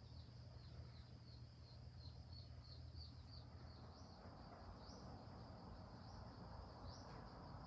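Faint high-pitched animal chirping, repeating about three times a second and then thinning into a few separate rising chirps, over a low steady hum that fades out about halfway through.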